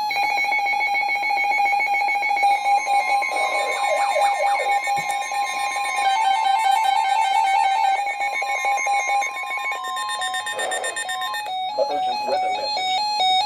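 Weather radio receivers sounding the alert for a severe thunderstorm warning: loud electronic alarm tones, one steady pulsing tone with a second, higher steady tone joining about four seconds in and stopping near ten seconds. Near the end the alarm changes to a warbling back-and-forth between two pitches.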